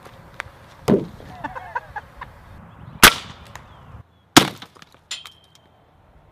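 Three sharp, loud gunshots from a suppressed gun, about a second, three seconds and four and a half seconds in, fired at a jar of peanut butter and jelly. A smaller crack with a brief high ring follows near the end.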